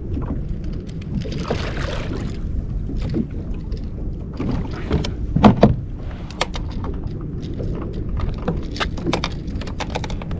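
Knocks, clicks and clatter against a kayak while a hooked striped bass is worked free with pliers, over a steady low rumble. The loudest knock comes about five and a half seconds in.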